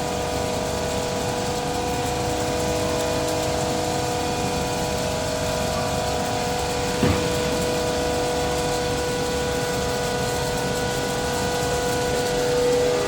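A 20-ton flake ice machine running on a test run: its three Bitzer piston refrigeration compressors hum steadily, with several steady tones over the noise. A brief sharp sound cuts through about seven seconds in.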